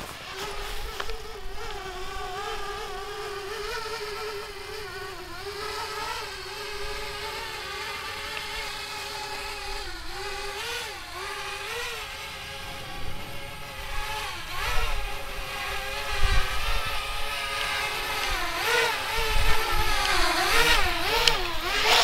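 Parrot Bebop quadcopter's propellers humming as it descends and comes in to land, the pitch wobbling up and down with the throttle and growing louder over the last few seconds.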